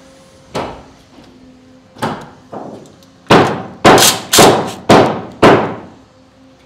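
Sharp knocks on steel garage door track: a few lighter ones, then five loud ones about half a second apart, each ringing briefly, as the curved track joint is adjusted into line.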